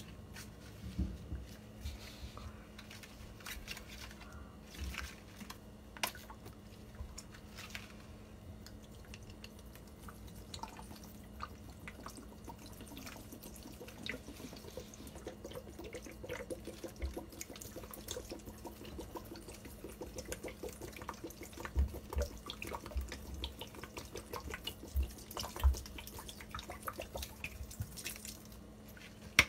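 Pine-Sol cleaner poured from its plastic bottle onto sponges in a plastic basin, with liquid sounds and scattered clicks from handling the bottle and its flip cap. A few louder knocks come in the last third.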